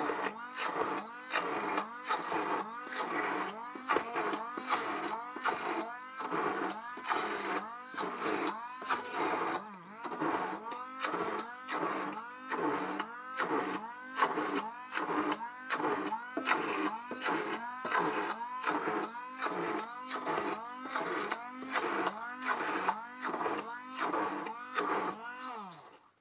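Hand-held immersion blender puréeing beetroot in a pot. Its motor pitch dips and recovers about twice a second as the blade works through the mash. Near the end it winds down and stops.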